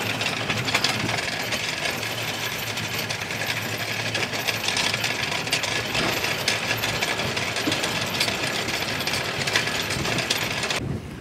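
Anchor chain paying out through the sailboat's windlass, a steady metallic rattle that stops abruptly near the end.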